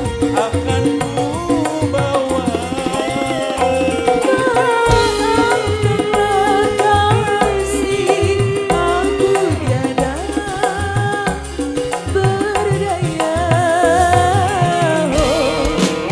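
Live campursari band music: a woman singing a wavering melody over kendang hand drums and the band.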